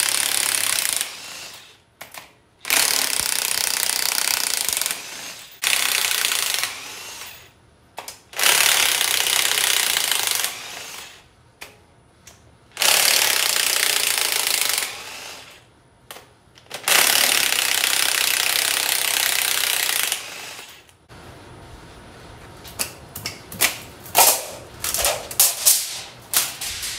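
Cordless impact wrench hammering in six bursts of one to three seconds each, breaking loose and spinning out the cylinder head bolts on an LS V8 block. Near the end comes a run of short metallic knocks and clanks as the cylinder head is lifted off.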